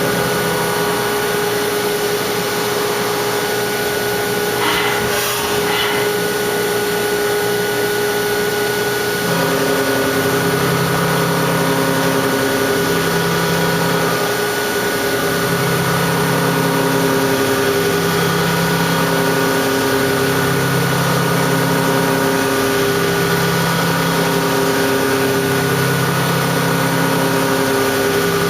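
Haas five-axis CNC vertical machining center running its automated cycle on a cylinder head's valve seat pockets: steady machine and spindle tones. A brief hiss comes about five seconds in, and from about nine seconds in a low hum switches on and off every second or two as the machine moves.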